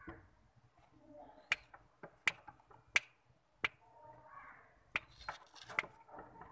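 A run of sharp snaps, about seven in four and a half seconds, from a hand working close to a pair of Jacobin pigeons, with soft low sounds between them.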